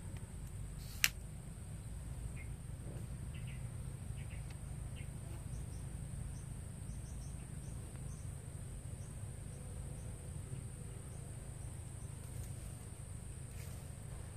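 Steady high-pitched insect drone over a low, even background rumble, with scattered faint chirps and one sharp click about a second in.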